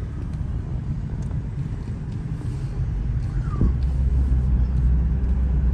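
Low, steady road and engine rumble inside a moving car's cabin, growing louder about two-thirds of the way through.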